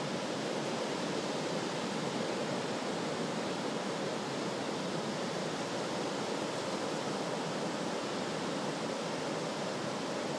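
Ocean surf breaking on a sandy beach: a steady, even rush of waves and foam with no single crash standing out.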